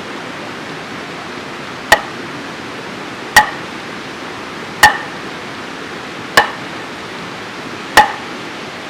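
Five sharp strikes about a second and a half apart, each with a short metallic ring, like blows from a hammer or hatchet on metal or wood, over a steady rushing background.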